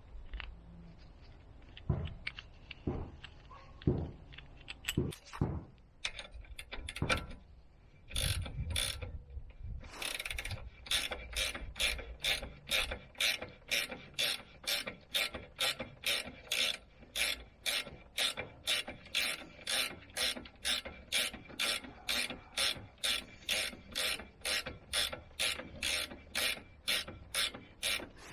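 Hand ratchet wrench working a suspension bolt in a steady back-and-forth rhythm, about two clicking strokes a second. Before that come a few scattered metal knocks and clicks as the tool is handled and fitted.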